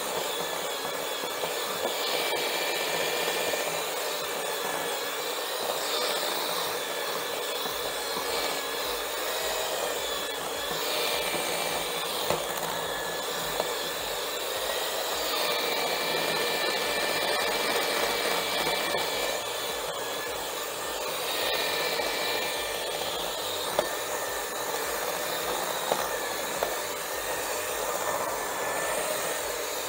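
Electric hand mixer running on high, its beaters whirring through thick chocolate buttercream frosting in a glass bowl, with a few brief clicks.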